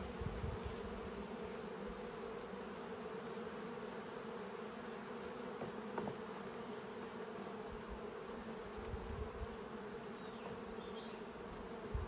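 Honeybees buzzing in a steady, dense hum from an opened Langstroth hive under inspection, the sound of a well-populated colony. A faint click about halfway through.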